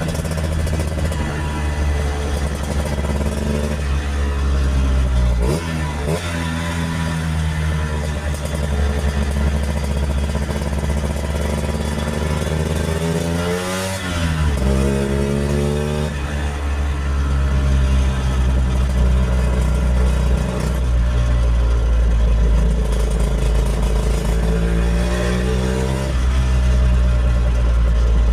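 1964 Lambretta Series 3 scooter's two-stroke single-cylinder engine running under way, its note rising and falling with the throttle; twice, about five and fourteen seconds in, the pitch drops sharply and climbs back up.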